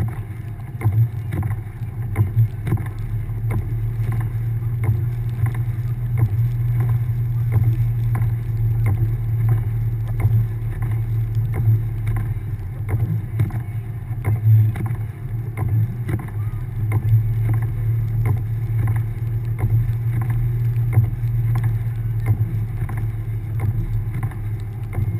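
1999 Subaru Forester's 2.5-litre flat-four engine pulling steadily as the car drives through deep snow: a steady low drone with many small ticks and knocks over it.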